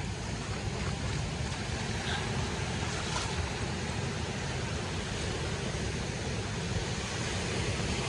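Steady wind and sea surf, with the wind buffeting the microphone.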